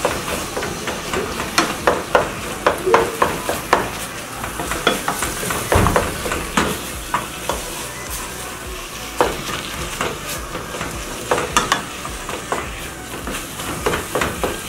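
Wooden spoon stirring and crushing cooked leafy greens in a stainless steel pot, with irregular knocks and scrapes against the pot over a steady sizzle from the frying pot.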